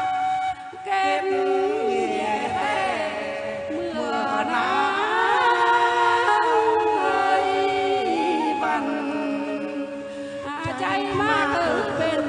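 A woman and a man singing a Phong Slư duet, the Tày folk love-song form, into microphones, with long held, wavering notes and a brief break about half a second in.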